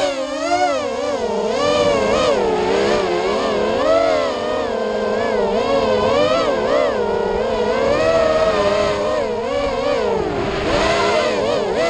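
FPV racing quadcopter's electric motors and propellers whining. The pitch swings up and down quickly and constantly as the throttle changes through the turns.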